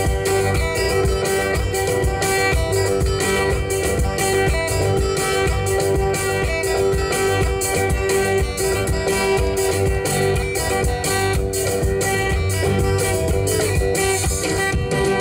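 Live band playing: electric guitars picking interlocking lines over a drum kit keeping a steady beat.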